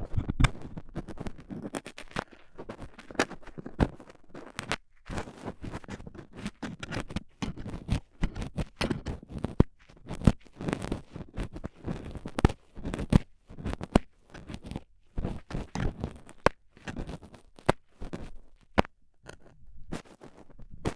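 Stainless steel dental tools scraping, scratching and tapping in a binaural microphone's ear for ASMR ear cleaning, mimicking dried earwax being scraped off the eardrum. Quick, irregular crackling strokes and sharp ticks with a brief pause about five seconds in.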